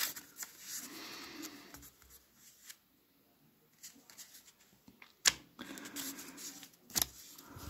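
Small paper booklet being handled and turned over: soft paper rustling with a few sharp taps, the loudest about five seconds in and again about seven seconds in.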